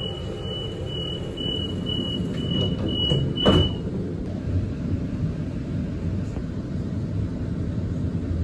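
Sydney Trains Waratah door-closing warning: a high beep repeating about twice a second for about four seconds, then the sliding doors shut with a knock about three and a half seconds in. A low steady rumble runs underneath.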